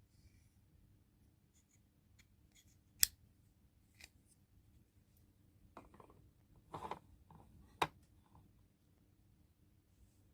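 Close-up handling of toy packaging: a few sharp clicks, the loudest about three seconds in and another near eight seconds, with a brief rustle between them.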